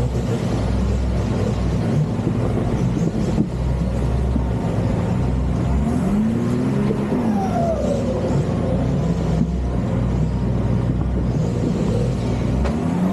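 Nissan Patrol Y61 off-road wagon's engine running steadily under load while crawling, its pitch rising and falling a few times around the middle.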